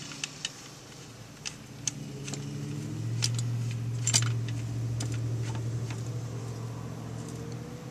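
Light metallic clinks and clicks of a car jack being handled and wound up under the car. A steady low hum sets in about three seconds in and runs beneath them.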